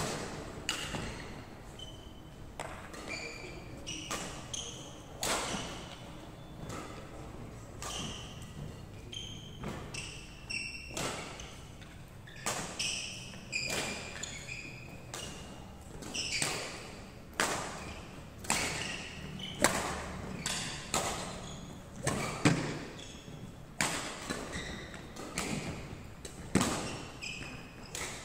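Badminton rackets hitting the shuttlecock at irregular intervals during rallies, mixed with players' shoes squeaking and thudding on a wooden court floor, in an echoing hall.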